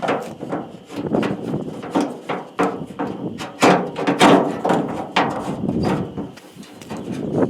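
Many irregular knocks and clatters from hands and tools working on a pickup tailgate and its latch mechanism.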